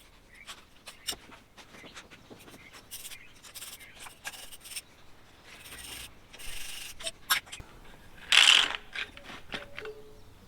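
Hand-tool work on a V12 tank engine: scattered clicks, clinks and scrapes of tools and metal parts being handled, with a short, louder scrape about eight and a half seconds in.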